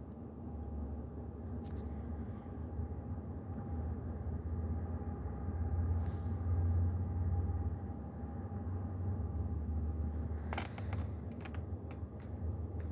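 Low, steady rumble of a distant train passing, swelling about halfway through; a few sharp clicks near the end.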